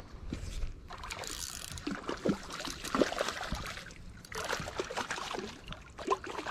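Irregular water splashing and gurgling at the edge of a creek, with short knocks and rustles from a landing net and fishing rod being handled among the rocks.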